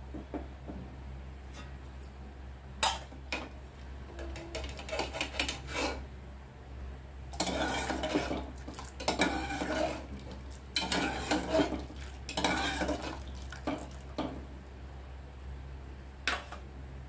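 Steel serving spoon clinking and scraping against the inside of a metal pressure cooker and a steel bowl as boiled chicken pieces are scooped out of the soup. The clinks come in irregular clusters, sparse at first and busiest in the middle of the stretch.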